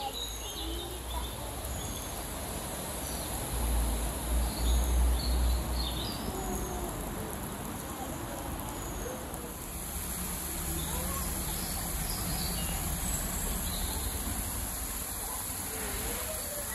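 Shallow stream running over stones, with short high bird chirps and peeps scattered throughout. A low rumble on the microphone is loudest about four to six seconds in.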